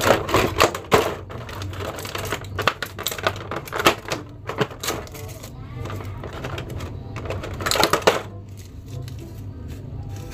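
Thin clear plastic blister tray clicking and crackling as toy action figures are handled and pulled out of it, with irregular clicks and a louder burst of crackling about eight seconds in.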